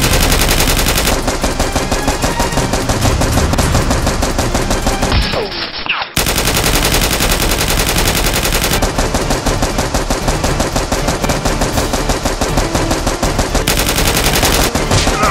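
Rapid automatic gunfire sound effect, a continuous stream of machine-gun shots with a brief break about six seconds in.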